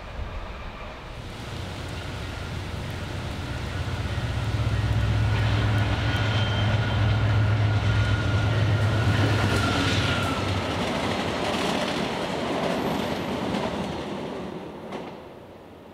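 VIA Rail passenger train led by a GE P42DC diesel locomotive passing. The locomotive's engine drone builds and is loudest mid-way, then the sound of the train fades away.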